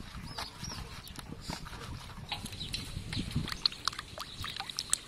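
Hands rubbing wet frog skin against a metal tray, then sloshing and splashing water while washing the frogs, with many short wet squelches and splashes.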